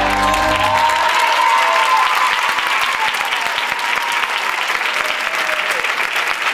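Theatre audience applauding as the dance music ends about a second in.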